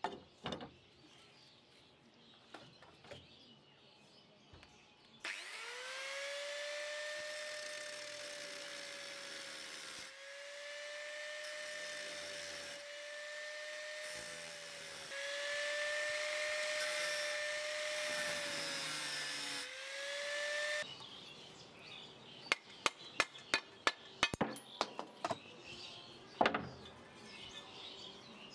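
Angle grinder with an abrasive disc spinning up and grinding against the old knife's metal: a steady high whine with a grinding hiss for about fifteen seconds, briefly interrupted twice. It cuts off, and a quick run of sharp knocks and taps follows.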